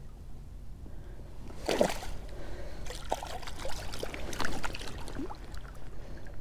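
Shallow water sloshing and splashing in small irregular bursts, with a louder burst about two seconds in, as a tired fish is held in the water for release.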